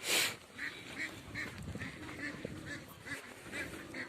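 A flock of domestic ducks and geese calling, short honks and quacks following each other several times a second. A brief loud burst of noise comes right at the start, the loudest thing heard.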